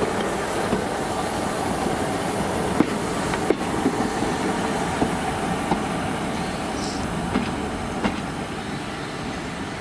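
A train running along the track, its wheels clicking irregularly over rail joints and points, slowly fading toward the end.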